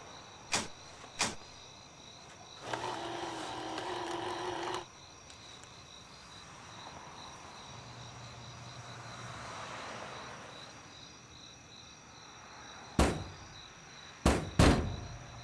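Crickets chirping steadily in the night air. Two sharp clicks come early on, then a steady electrical-sounding hum for about two seconds. Near the end there are three loud thuds.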